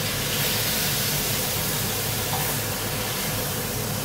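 Sirloin steaks and garlic sizzling in fat in a very hot frying pan as the steaks are lifted out with tongs: a steady hiss, with a low hum beneath it.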